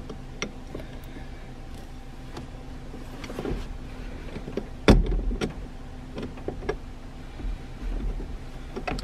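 Threaded steel rod and nut clicking and tapping as they are fitted through a hydraulic handbrake bracket, with one louder metallic knock about five seconds in. A steady low hum runs underneath.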